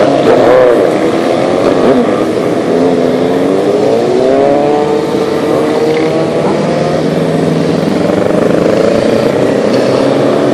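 A procession of motorcycles riding past, several engines overlapping, their pitch rising and falling as each bike goes by.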